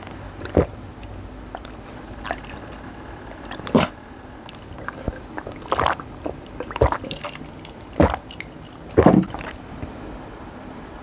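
Close-miked eating of bibimbap: scattered bites, chewing and wet mouth sounds, a few seconds apart.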